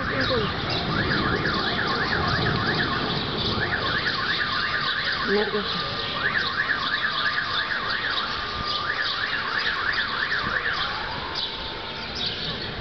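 An electronic alarm warbling in quick rising-and-falling sweeps, in four bursts of about two seconds each with short pauses between.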